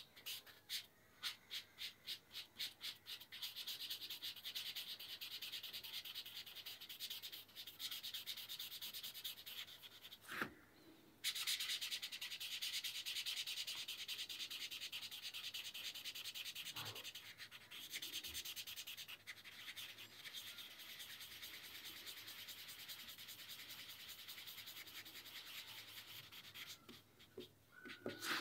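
Felt tip of a black whiteboard marker rubbing back and forth on paper while filling in shading: quick separate strokes at first, then near-continuous scratchy rubbing with a short break about ten seconds in.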